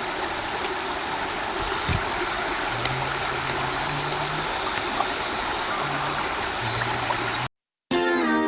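Steady rushing of a stream's running water. It cuts off suddenly near the end, and acoustic guitar music starts.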